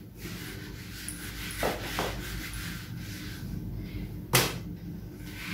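Whiteboard being wiped with an eraser: soft rubbing on the board, with two light knocks around two seconds in and a sharp tap a little after four seconds.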